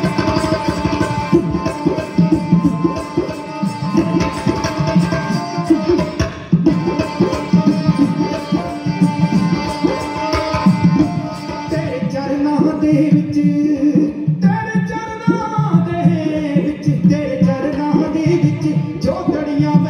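Dhadi music: a sarangi bowing a held melody over quick rhythmic strokes on dhadd hand drums. Voices singing join in over the second half.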